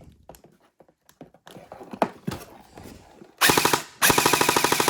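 M249 airsoft electric gun with a V2 gearbox firing BBs on full auto: a short burst about three and a half seconds in, then a longer burst from about four seconds in, each a rapid, even rattle of about fifteen shots a second. A few faint clicks come before the first burst.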